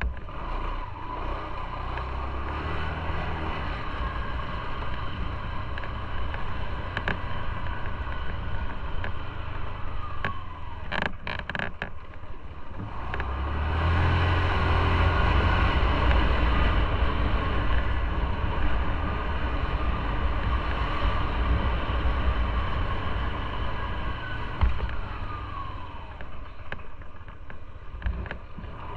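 Motorcycle being ridden on the road: engine running under steady wind and road noise. The engine rumble grows louder about halfway through.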